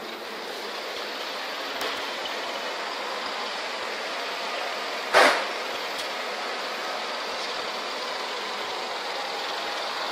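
Steady drone of a mobile crane's engine working as it lifts a load on its hook, with one brief loud burst about five seconds in.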